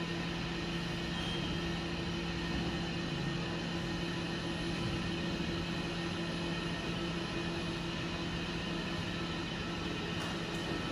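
Steady machine hum and hiss of a bridge-type coordinate measuring machine running as it moves its touch probe around a steel part, with two low tones held constant. A faint click comes near the end.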